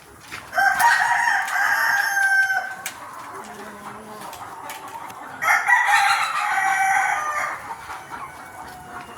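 Desi (native Indian) rooster crowing twice, each crow about two seconds long and a few seconds apart.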